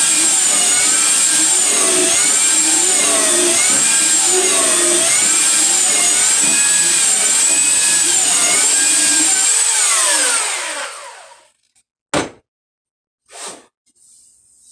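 Electric sander running loudly, its pitch wavering up and down in a slow, even cycle as it works the wood. It is switched off about ten seconds in and winds down. Two sharp knocks follow about a second apart.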